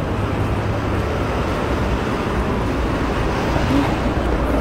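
Steady street traffic noise.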